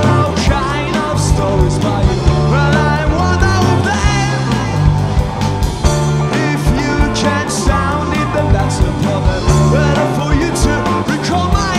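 Rock band playing live: distorted electric guitars, electric bass and a drum kit with steady cymbal strokes, with a man singing over it.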